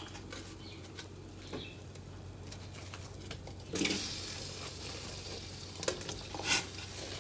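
Raw shrimp dropped by hand into a steel pot of hot water, with soft plops and light clicks against the pot. About four seconds in, a steady hiss comes in and continues.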